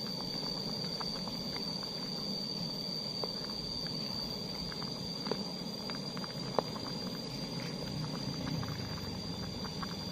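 Seblak soup simmering in a metal camping pot on a portable gas stove: a steady burner hiss with many small bubbling pops. A wooden spoon stirs and scrapes in the pot and knocks against it a few times.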